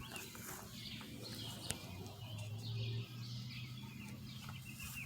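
Birds chirping, with a steady low hum beneath and a single sharp click about one and a half seconds in.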